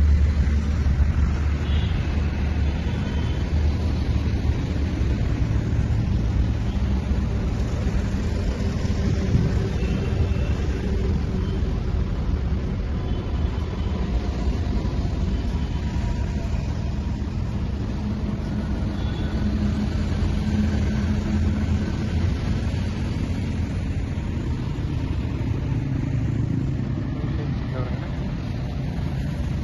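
Steady noise of road traffic, a continuous low rumble of passing vehicles.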